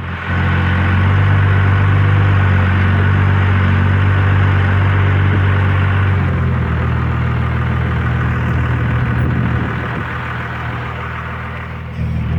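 Truck engine running steadily, getting louder just after the start; its note and level step down about six seconds in and pick up again near the end.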